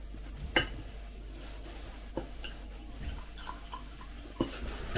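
A few light clicks and knocks of a small glass teapot and a ceramic mug being handled on a table, the sharpest about half a second in. Near the end tea starts to pour from the teapot into the mug.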